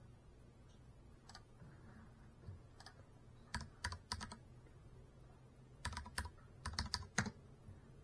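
Scattered sharp clicks or taps, mostly in quick clusters of a few, about three and a half, six and seven seconds in, over a faint low steady hum.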